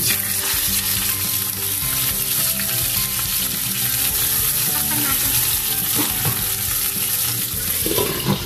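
A whole fish sizzling and frying in hot oil in a frying pan, starting as it is laid in, with a steady crackling hiss. Near the end a glass lid is set over the pan.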